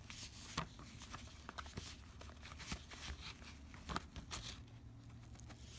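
Faint handling noise from a small sealed cardboard trading-card box being turned over in the hands: scattered light clicks, taps and rubs, over a steady low hum.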